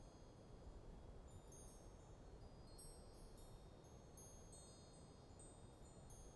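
Wind chimes ringing faintly and irregularly in a light breeze: many high, overlapping chime tones struck at random, over a steady low wind noise.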